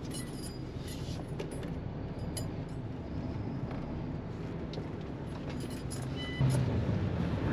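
Heavy truck's diesel engine running, heard from inside the cab, a steady low hum with small rattles and clicks. About six and a half seconds in, the engine note steps up and gets louder.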